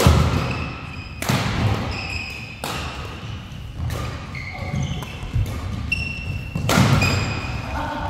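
Badminton doubles rally in a large hall: sharp racket strikes on the shuttlecock at irregular intervals, four hard ones spread over the stretch, with short high squeaks of court shoes on the floor between them.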